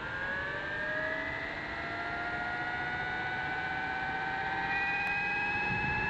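Electric motor and gear drive of an electric-converted Schweizer 300 model RC helicopter spooling up: a whine of several tones that rise slowly in pitch as the rotor speeds up.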